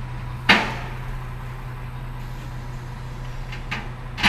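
A truck engine running steadily with a low hum. A loud sharp knock comes about half a second in, and two lighter knocks come near the end.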